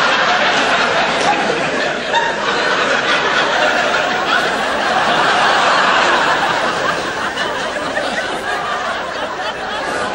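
A large theatre audience laughing loudly together, the laughter easing a little near the end.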